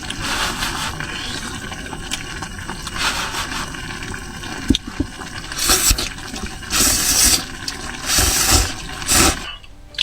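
A person slurping noodles: several short, loud slurps in the second half, with a sharp click about halfway through.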